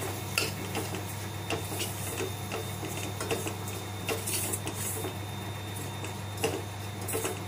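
Metal spoon scraping and tapping against a stainless steel pan as milk powder is stirred into dry, crumbly mashed paneer, in an even rhythm of about two or three strokes a second. A steady low hum runs underneath.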